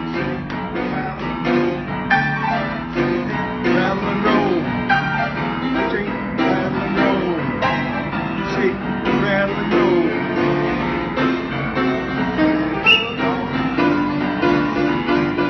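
Grand piano played live without a break, melody over sustained chords.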